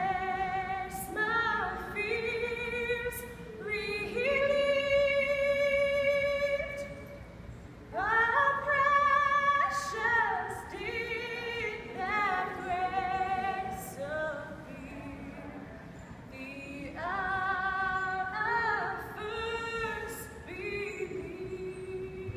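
A woman singing solo in long phrases, holding notes with a clear vibrato.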